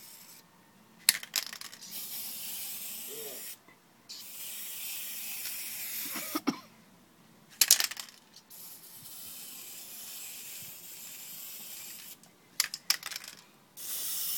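Aerosol spray paint can hissing in four long bursts of a few seconds each, with sharp clicks and knocks between the bursts.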